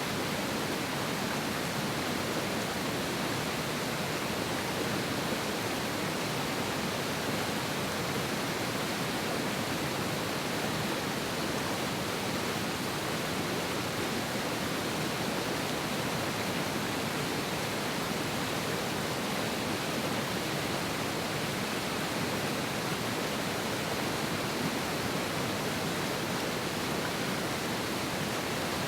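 A fast mountain river rushing, a steady, full roar of water with no change.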